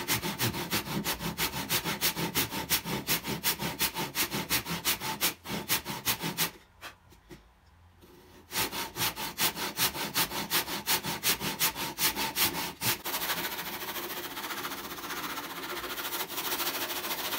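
Handsaw cutting the blade slot in a rosewood saw handle, in quick short strokes at about four a second, with a pause of about two seconds partway through. Near the end the strokes turn into a steadier rasp as a larger saw widens the slot for a bigger blade.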